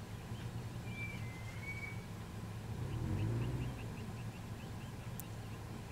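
Vehicle engine idling steadily, with a bird's short whistle about a second in and a quick even run of chirps from about three seconds on.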